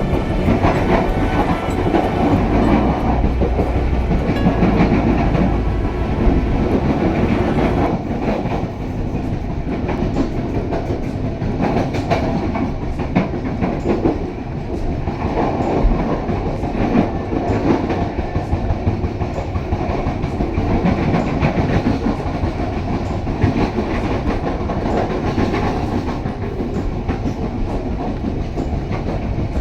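Pasundan passenger train running along the track, heard from on board, with its wheels clacking irregularly over rail joints amid steady running noise.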